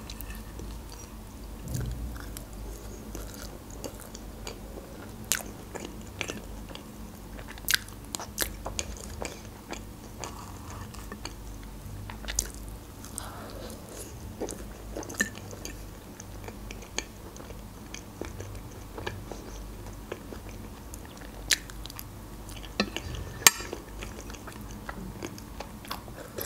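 Close-miked eating sounds: a person chewing and biting into a meringue roll with strawberries and cream. Short sharp clicks come at irregular moments, from a fork against the plate.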